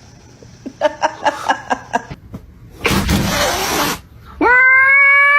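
A cat's long, drawn-out meow begins about four and a half seconds in and holds steady. Before it come a quick run of about seven short laugh-like yelps and a hissing burst about a second long.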